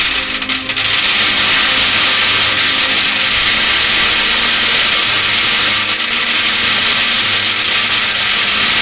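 A continuous stream of metal BBs pouring onto a tin can, making a dense, unbroken metallic clatter that runs on steadily.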